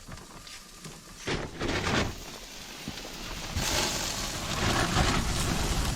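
Burger patties sizzling in a hot pan under heavy wind noise that rumbles on the microphone and grows louder about halfway through.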